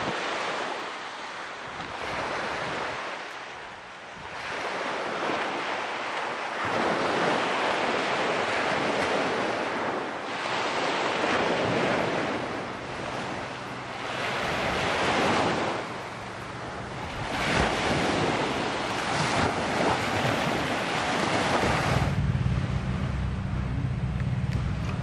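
Sea waves breaking and washing on the shore, surging every few seconds, with wind buffeting the microphone. Near the end a low, steady engine hum comes in.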